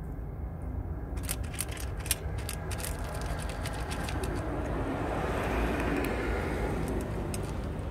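A cat licking and lapping a puree treat from a metal feeding tray, with a quick run of wet clicks in the first few seconds. A passing vehicle's noise swells and fades over a steady low rumble in the second half.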